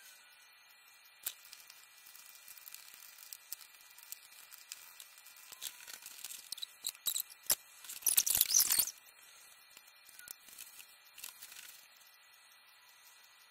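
Faint scattered clicks and small rustles, with a brief louder crackling rustle about eight seconds in.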